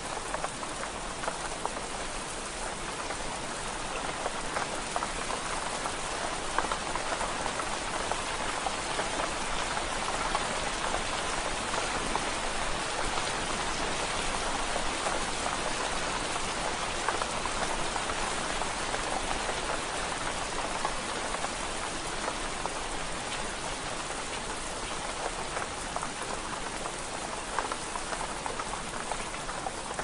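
Light rain falling steadily in a forest: a dense, even patter of many small drops.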